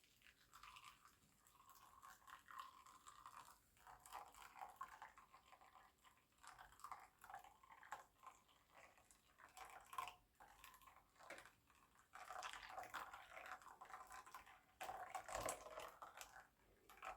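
Faint breakfast eating sounds: a spoon clicking and scraping in a bowl of brinta with milk, with chewing. A louder clatter comes about two seconds before the end.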